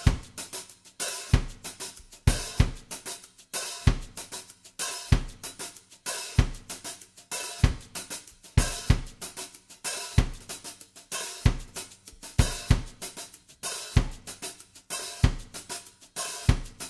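Background music with a drum kit playing alone: cymbals, hi-hat and snare over a bass drum beat about every second and a quarter.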